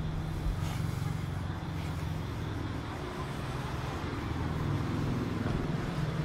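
Street traffic: a motor vehicle's engine running with a steady low hum that grows a little louder toward the end.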